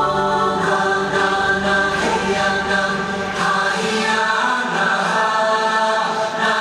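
Choral music: a choir singing long, layered, held notes over musical backing, with the deep bass dropping away about four seconds in.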